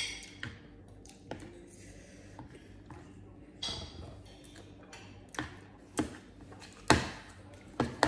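Metal spoons and forks clinking and tapping against plates and dishes at a meal, in scattered single clicks with short hissy mouth sounds of eating between them. The loudest knock comes about seven seconds in.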